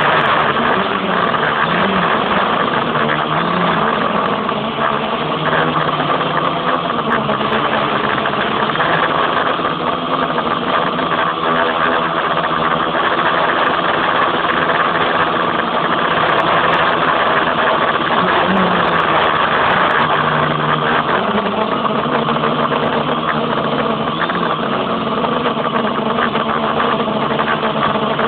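Quadcopter's electric motors and propellers whirring steadily in flight. The pitch shifts up and down several times as the throttle changes.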